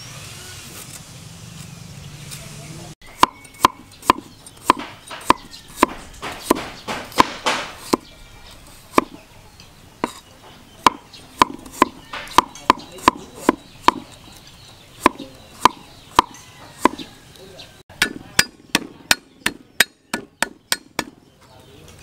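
Steel cleaver chopping on a round wooden chopping block. It makes sharp single knocks at an uneven pace, starting about three seconds in, and a quicker run of chops near the end as it cuts through green onions.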